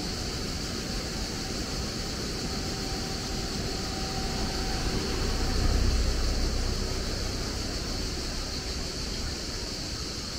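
Steady outdoor background noise: an even hiss with a high steady band over it, and a low rumble that swells about halfway through and fades again.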